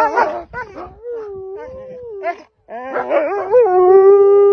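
Wolves howling close by. It opens with overlapping yips and whines from several animals, then one long howl that rises and falls. After a brief break come more yips, and a long, loud, steady howl near the end.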